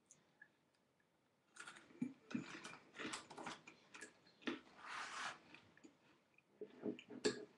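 Crunchy hemp snack being bitten and chewed close to the microphone: crackling crunches for a few seconds, a pause, then a few more crunches near the end.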